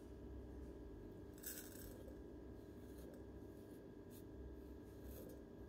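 Coarse ground coffee being added with a scoop to a portable coffee maker's coffee basket, very faint: a soft rustle about one and a half seconds in and a few light clicks over a low hum.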